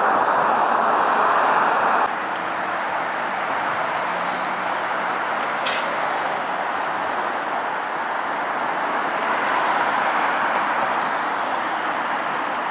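Steady road traffic noise, dropping a little in level about two seconds in, with a single sharp click around the middle.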